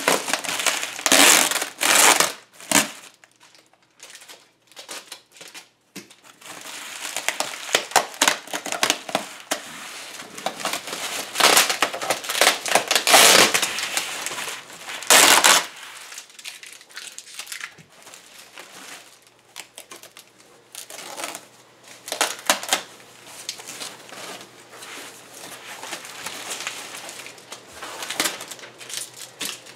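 Bubble wrap and plastic packaging crinkling and rustling as hands pull it off a small boxed device, in uneven bursts that are loudest in the first half and quieter later.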